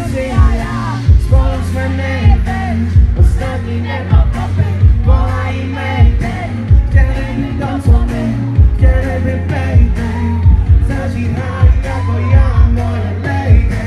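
Live pop concert heard from the audience: a male vocalist singing into a microphone over loud amplified music, with heavy bass drum beats.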